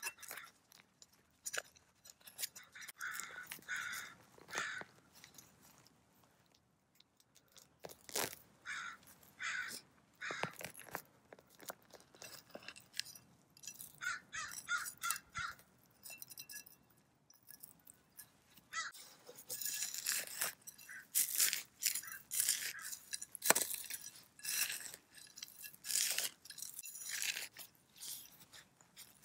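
Crows cawing in a few short runs, over a metal hand trowel scraping and crunching through dry potting soil and bark mulch in a terracotta pot as old soil is dug out. The digging strokes grow louder and come thicker in the second half.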